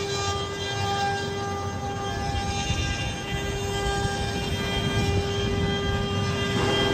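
Four 2.2 kW spindles of a four-head CNC wood router running at 24,000 rpm while the machine carves, a steady high whine with a ladder of overtones over rougher machine noise. The whine weakens briefly about two and a half to three seconds in.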